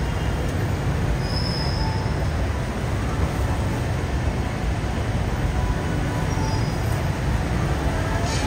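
BTS Skytrain metro train running, a steady low rumble with a brief high squeal from the wheels about a second and a half in.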